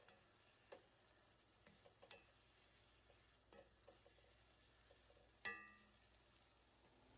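Very faint clicks and scrapes of a wooden spatula stirring marinated steak strips in a cast-iron skillet. There is a short, slightly ringing clink about five and a half seconds in.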